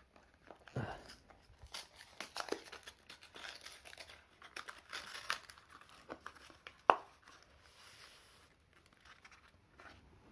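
Small cardboard box opened by hand: a paper seal tearing, then the lid and a folded paper insert crinkling and rustling in short irregular spells, with one sharp snap about seven seconds in.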